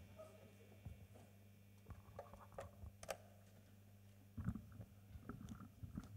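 Near silence on a stage: a faint steady low hum, with scattered faint clicks and knocks and a few soft low thumps about four and a half seconds in.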